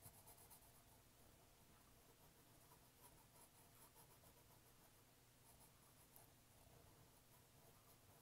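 Near silence, with the faint scratch of a black felt-tip marker colouring in a small circle on paper.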